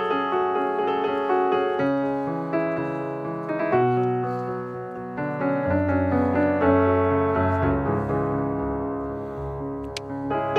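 Solo piano music, a slow melody over held bass notes.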